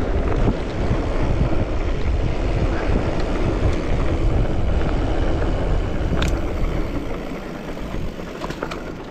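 Mountain bike riding noise: wind buffeting the camera microphone over the rumble of the bike rolling on a dirt trail, with a few sharp clicks. It eases off about seven seconds in.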